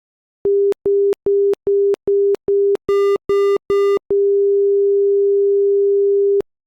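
Electronic alert signal: nine short beeps on one steady low tone, about two and a half a second, the last three joined by a higher, buzzy tone, then one long steady tone of about two seconds that cuts off suddenly.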